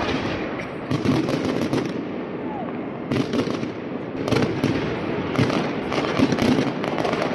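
Aerial fireworks display going off: dense crackling and popping in repeated clusters of rapid bangs over a continuous noisy rumble.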